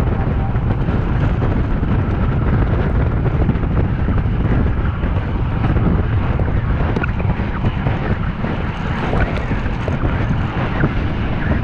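Loud, steady wind buffeting the microphone of a camera on a road racing bike riding at speed.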